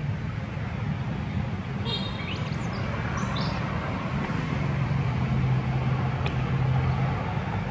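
Low steady rumble of a motor vehicle running, with a few short high chirps between about two and three and a half seconds in.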